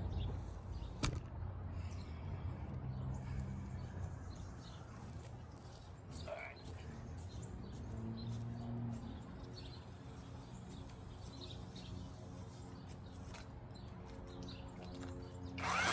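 Quiet outdoor background with a steady low hum and a few faint bird chirps, a single click about a second in, and a short noisy burst near the end.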